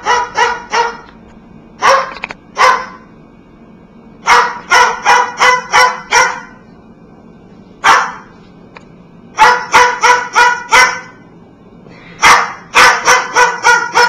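White cockatoo mimicking a dog's bark: short, sharp yaps in bursts of two to six, with pauses between the bursts.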